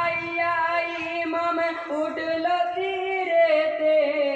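Men singing a Bengali marsiya, a Shia mourning elegy for Imam Husayn, in long drawn-out held notes that rise and fall slowly.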